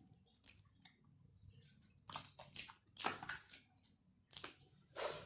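Close-up chewing of soft boiled chicken and rice: short wet, smacking mouth sounds coming in bursts, louder about two, three and five seconds in.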